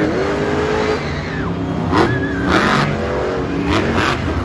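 Monster truck engines revving on a dirt arena track, the pitch climbing and dropping several times as the trucks accelerate.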